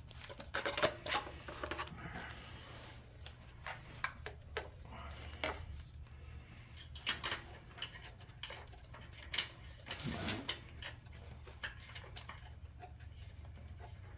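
Scattered light clicks and knocks of hands working an oil bottle and dipstick while topping up the oil of a small Briggs & Stratton mower engine, with a couple of louder knocks about a second in and about ten seconds in.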